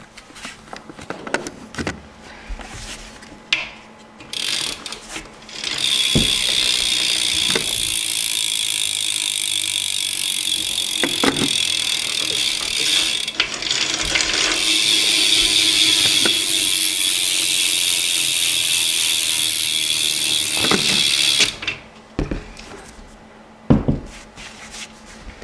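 BMX rear hub (an Odyssey hub) freewheeling as the back wheel spins, its pawls making a continuous fast ratcheting buzz for about fifteen seconds. Handling clicks and knocks come before it, and a few thumps after it stops suddenly.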